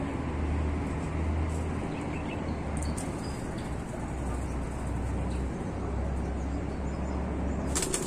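Wind buffeting the microphone: a steady rumbling rush that holds through without breaks.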